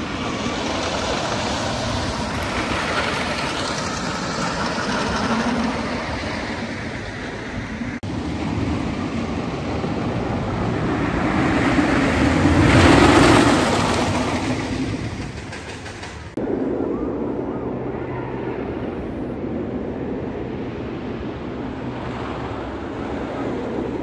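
Roller coaster train running along its track, swelling to its loudest about halfway through as it passes and then fading. The sound changes abruptly about a third of the way in and again about two-thirds in.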